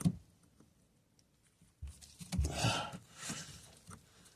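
Handling noises from work on a washing machine fitting: a click, then a knock, then a second or so of rustling and scraping as a part is worked into place.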